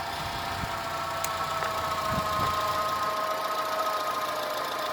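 Honda CR-V engine idling steadily with a whine, just after being started by touching a cable to the positive terminal, because the key ignition will not start it. The whine eases slightly lower in pitch about halfway through.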